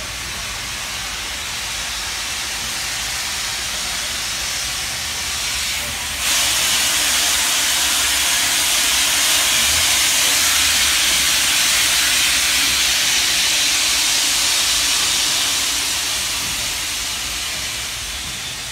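Steam locomotive 3642 blowing off steam with a steady hiss. The hiss steps up sharply about six seconds in and eases off slightly near the end.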